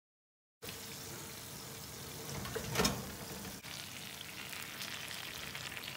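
A hot baking tray of chicken pieces, potatoes and peppers sizzling and crackling in its juices, fresh out of a 220-degree oven. There is a brief clunk a little under three seconds in.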